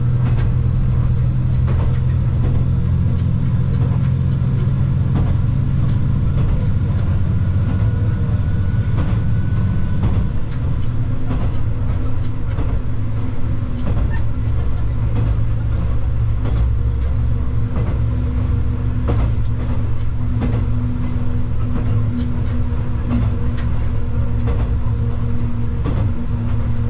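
Inside a KiHa 120 diesel railcar on the move: steady diesel engine drone with frequent clicks and knocks from the wheels on the track. The engine note changes about ten seconds in.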